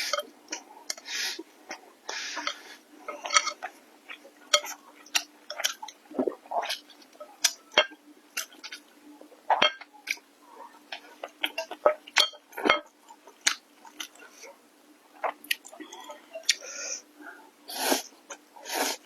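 Close-miked eating of glass noodles and rice: many short wet chewing and lip-smacking clicks, a few longer slurps, and the odd clink of a utensil on a dish.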